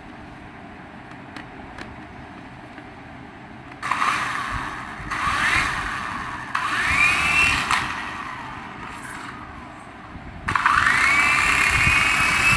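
Small electric motor of a remote-control toy whining as it spins up, the pitch rising and then holding steady; it does this about three times, starting about four seconds in, with the last one starting near the end and running on.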